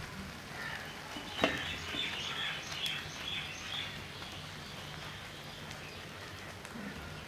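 A slotted metal spatula working and pressing tomato slices down into a thick masala in a metal frying pan, with one sharp clink of metal on the pan about one and a half seconds in. Birds chirp in the background.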